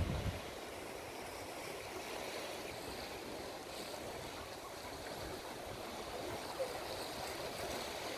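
Steady sea ambience: an even hiss of waves and moving water, with a low rumble of wind on the microphone that dies away just after the start.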